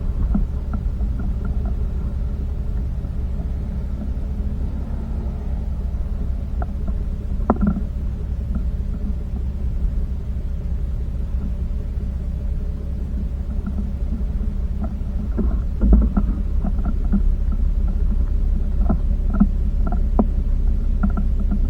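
Jeep Cherokee driving over a rough off-road track, heard as a steady low rumble with scattered knocks and rattles, the loudest about sixteen seconds in.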